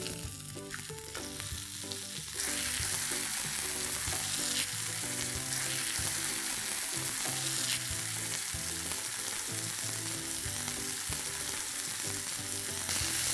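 Masala-coated fish slices sizzling in coconut oil on a hot tawa as they are turned over with a wooden spatula. The sizzle gets louder about two seconds in and then holds steady.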